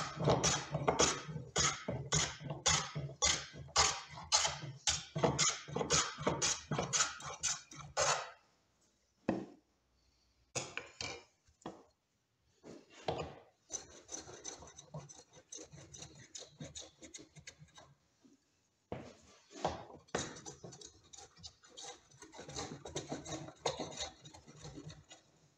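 Wooden double-iron hand plane shaving a thin board, quick back-and-forth strokes about two a second. After a short pause about eight seconds in, the strokes turn lighter and more spaced.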